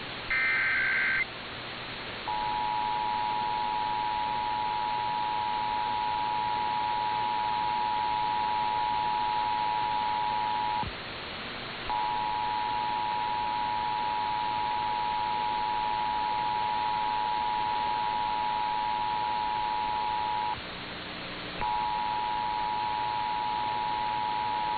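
Emergency Alert System test alert. About a second in, the last of the warbling SAME digital header bursts plays. It is followed by the EAS two-tone attention signal, a steady dual-tone beep sounding three times for about eight or nine seconds each, with a second of hiss between. The whole alert is heard over broadcast hiss.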